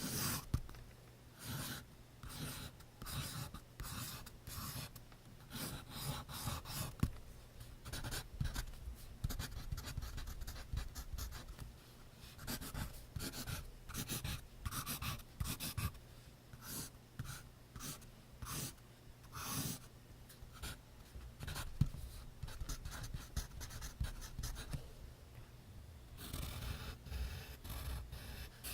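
Graphite pencil writing on notebook paper in short, irregular scratchy strokes. Near the end the strokes run together into a steadier, continuous scratching.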